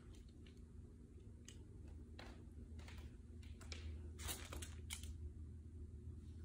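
Light clicks and scuffs of a small dog's claws on a hardwood floor, busiest about four seconds in, over a low steady room hum.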